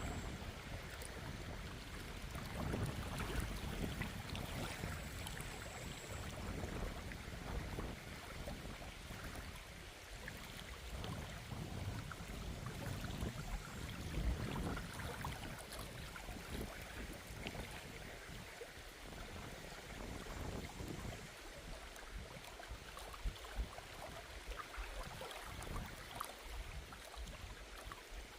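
Outdoor water sound, moving water running or lapping, under a shifting low rumble of wind on the microphone.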